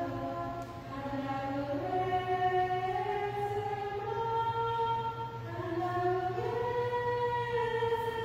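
Communion hymn sung slowly, in long held notes that step up and down, over a steady low hum.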